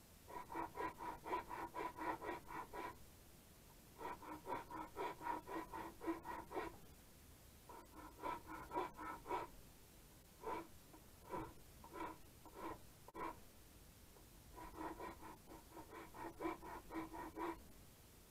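Wooden walking stick being worked by hand with rapid back-and-forth strokes, about five a second, in five bursts of two to three seconds with short pauses between.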